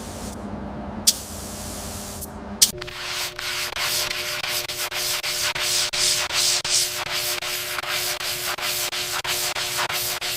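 A steady hiss with two sharp clicks, then, a little under three seconds in, sandpaper rubbed back and forth by hand in fast, repeated strokes.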